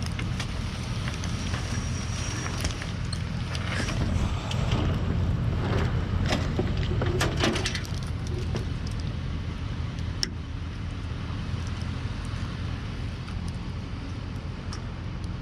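Vehicle on the move, heard from inside: steady engine and road rumble, with a run of clicks and rattles between about four and eight seconds in.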